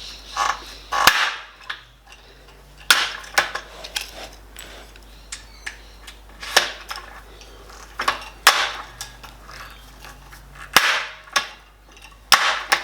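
Manual hand rivet gun setting aluminium pop rivets: smaller clicks as the handles are worked, and about six sharp snaps as the rivet mandrels break off.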